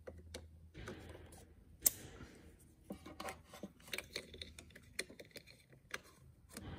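Plastic multi-pin wiring-loom connectors being handled and pushed together: a string of small clicks and rattles, with one sharper click about two seconds in.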